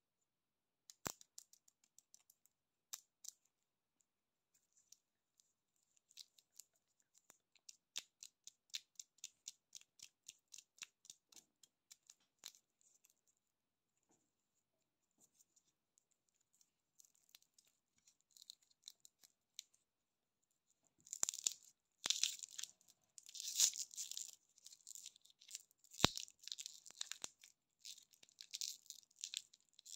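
Shiny plastic lollipop wrappers crinkling and clicking softly as the wrapped lollipops are handled. About twenty seconds in, one wrapper is peeled and torn off, with dense, louder crinkling and crackling.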